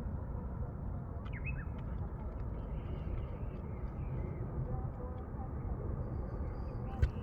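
Outdoor ambience: a steady low rumble with a few short rising bird chirps about a second in and fainter chirps later. A single sharp click comes near the end.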